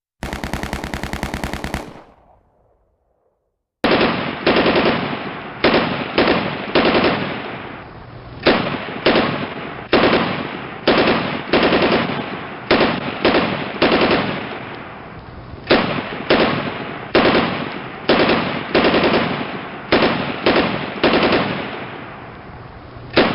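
Machine-gun fire: one fast, continuous burst lasting about a second and a half near the start, fading out, then after about a second of silence a long string of short rapid bursts, each starting sharply, coming every half second to a second.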